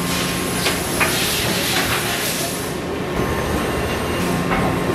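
Steady food-factory machinery noise: a broad hiss with a low hum, with a few light clicks and knocks as cooked patties are handled on steel wire racks.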